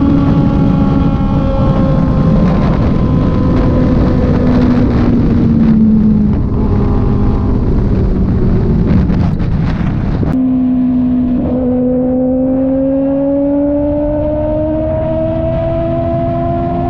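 Kove 450RR motorcycle engine running under way, with heavy wind rush. The revs sink slowly over the first several seconds. About ten seconds in the sound changes abruptly, and then the revs climb steadily as the bike accelerates.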